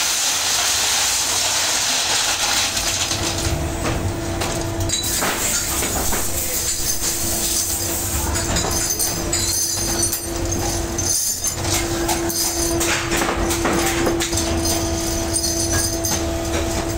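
Steady metallic clatter and rattle of a workshop machine, like cast clutch levers tumbling in a rotating barrel, over a constant motor hum that drops out briefly about ten seconds in.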